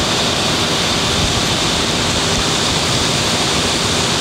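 Mobile crane's diesel engine running steadily during a lift: a loud, even rushing noise over a low hum.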